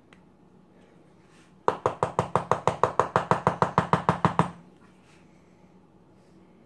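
A rapid, even run of about twenty sharp taps, some seven a second, starting about two seconds in and stopping after nearly three seconds, each with a short ringing tone.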